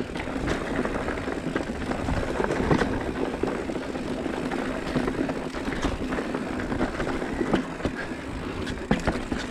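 Mountain bike being ridden over a trail feature. There is steady rolling and drivetrain noise with a continuous hum, and frequent short knocks and rattles from the bike going over bumps.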